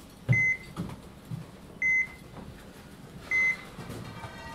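Heart monitor beeping, one short high tone about every second and a half, three times, with faint footsteps between the beeps.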